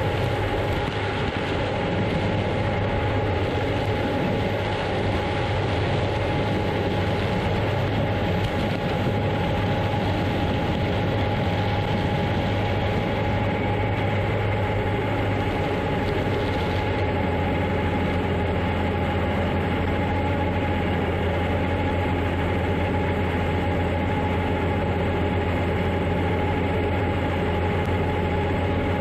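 Heavy harvest machinery running steadily under load, with a constant mid-pitched whine over a deep engine hum. The hum drops a little in pitch about halfway through.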